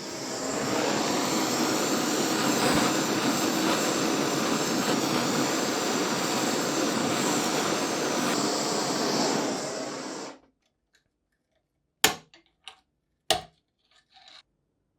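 A workshop tool running steadily with a loud, even rushing noise, cutting off suddenly about ten seconds in, followed by two sharp clicks.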